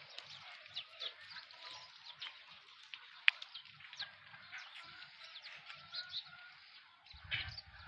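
Desi chickens calling faintly in a farmyard: scattered short chirps and clucks, with a sharp click about three seconds in and a low rumble near the end.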